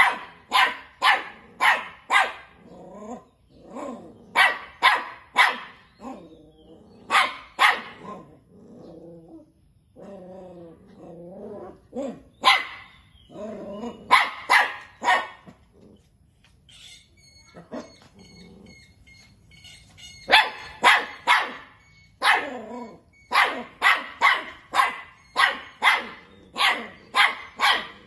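Puppies barking excitedly at a mouse in a wire cage trap: runs of sharp, high barks at about two or three a second. In lulls, around a third of the way in and again past halfway, there are quieter, lower growling calls.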